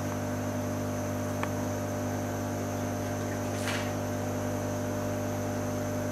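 Steady electrical mains hum with a stack of overtones, unchanging throughout, with a faint short noise about three and a half seconds in.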